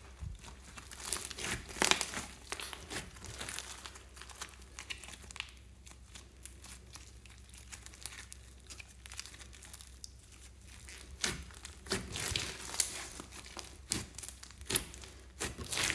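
Thick slime packed with small foam beads being stretched, folded and pressed by hand, giving irregular runs of crackling clicks and pops. It is busiest in the first few seconds and again toward the end, quieter in between.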